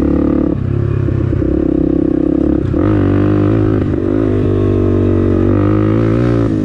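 Small Honda dual-sport motorcycle engine running under way, its pitch shifting with the throttle. About two and a half seconds in it gets a little louder, and the note then rises and falls for the next few seconds.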